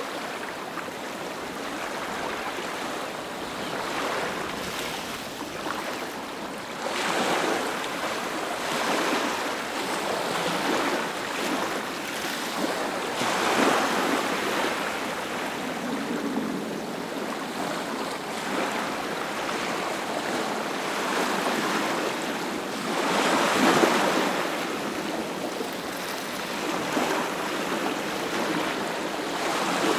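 Ocean surf: waves breaking and washing up the shore in a continuous rush, with three larger breakers swelling up louder over the stretch.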